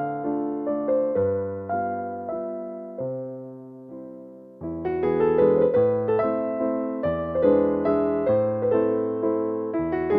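Background piano music: slow chords and melody notes, each struck and fading. The playing thins out and softens about three seconds in, then resumes fuller and louder about a second and a half later.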